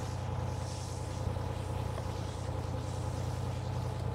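Fishing boat's engine running steadily, a continuous low hum.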